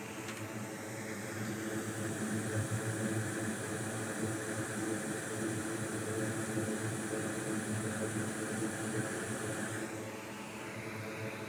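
A small electric blower running: a steady rush of air that builds over the first couple of seconds and cuts off about ten seconds in.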